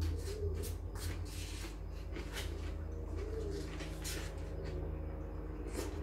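Chewing a crunchy raw vegetable salad of cucumber, tomato and onion close to the microphone, with irregular crunches over a steady low hum.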